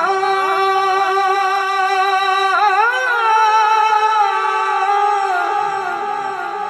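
A man's voice singing a naat unaccompanied into a microphone, holding one long drawn-out note almost the whole time, with a brief waver in pitch about two and a half seconds in.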